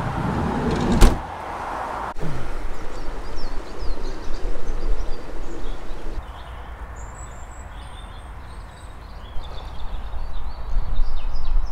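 A van's sliding side door is slid shut and slams about a second in, with a smaller click just after. Then come short high bird chirps over a low rumble.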